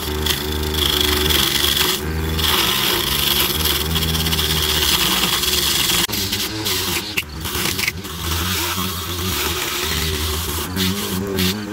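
Small DC printer motor driving a homemade mini lathe, running with a steady whine whose pitch wavers a little, while a hand-held blade scrapes and shaves a spinning styrofoam float blank.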